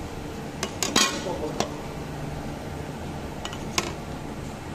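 Sharp metallic clinks and knocks as metal pieces are handled: a quick cluster about a second in, the loudest leaving a short ring, and two more near the end. A steady low machine hum runs underneath.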